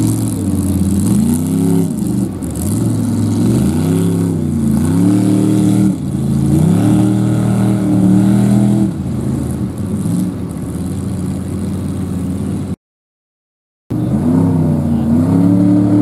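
Lifted Mopar mud truck's engine revving hard and easing off over and over as it churns through a mud bog, each rev rising and falling in pitch over a second or two. The sound cuts out completely for about a second near the end, then the engine revs up again.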